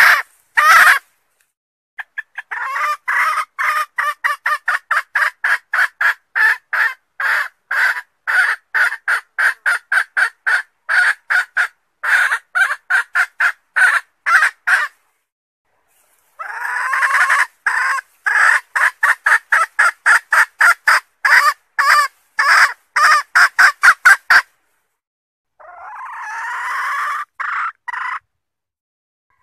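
Junglefowl hen cackling, rapid short notes at about four a second in two long runs separated by a brief pause, then one longer drawn-out call near the end. It is a hen's mating-solicitation call.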